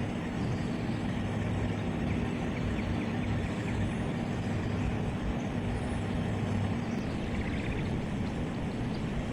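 A steady mechanical drone with a low hum, shifting slightly about two-thirds of the way through.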